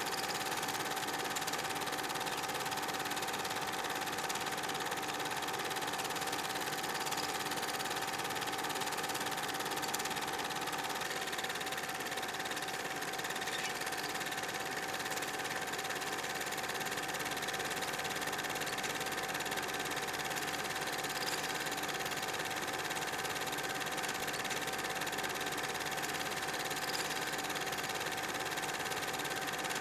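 Film projector running with a steady mechanical whir, the soundtrack of an old silent film.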